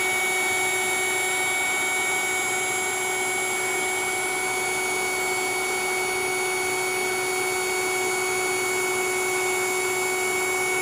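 Electric air-mattress pump running steadily as it deflates the mattress: an even motor hum with a high whine over it.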